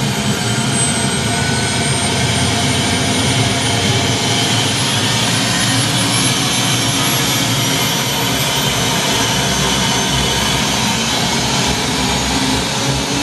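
Turbine helicopter's engine and rotor running on the ground during start-up, a steady loud roar with a high turbine whine that climbs slowly in pitch over the first few seconds.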